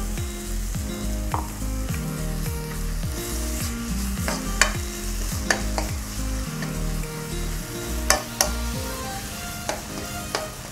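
A steel ladle stirs and scrapes cooked raw jackfruit and masala around a nonstick kadai, with the wet curry sizzling after a splash of water. The ladle clicks sharply against the pan several times.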